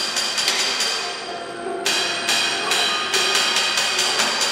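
Found-object percussion from a MIDI-driven robotic sound installation: rapid, even strikes, about five a second, with ringing tones holding between them. The strikes break off briefly a little under halfway through, then resume.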